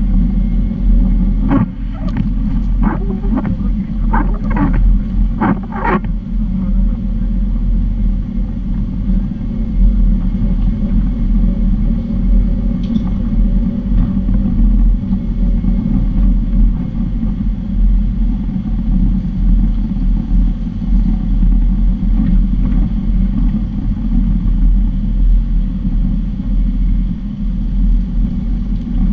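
4x4 off-road vehicle driving slowly along a gravel forest track: a steady low rumble of engine and tyres, picked up by a camera on the bonnet. A few short sharp knocks or rattles come through in the first six seconds.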